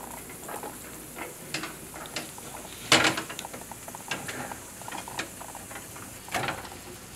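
Butter sizzling and foaming on a hot griddle pan as a stick of butter is rubbed across it, with scattered small clicks. A sharp knock about three seconds in is the loudest sound, and a smaller one comes near the end.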